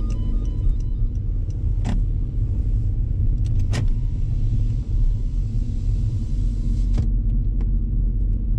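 Car driving along a street, heard from inside: a steady low rumble of engine and road noise, with a few sharp ticks scattered through it.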